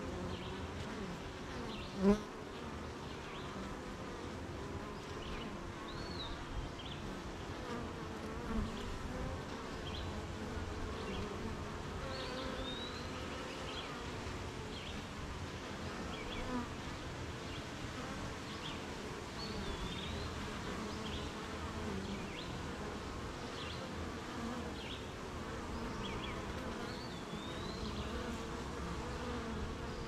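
Honeybees buzzing at the hive in a steady drone, with short high bird chirps every few seconds and a brief sharp bump about two seconds in.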